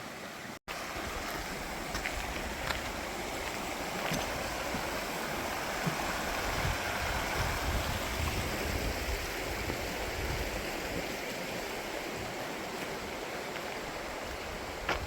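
Steady rush of a babbling mountain brook, with a few faint clicks over it.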